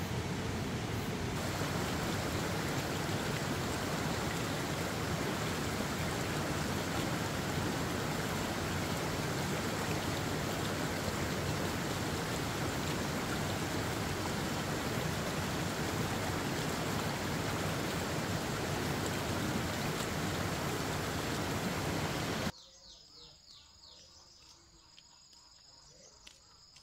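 A loud, steady rushing noise that cuts off abruptly near the end, leaving faint crickets chirping.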